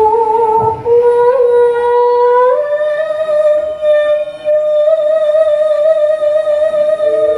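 A female Javanese sinden singing long, drawn-out notes into a microphone. The voice steps up in pitch about two and a half seconds in and holds the higher note to the end.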